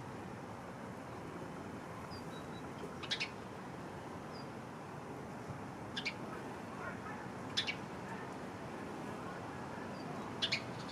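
Birds chirping in the background: four short, sharp chirps a couple of seconds apart and a few faint high notes, over a steady hiss.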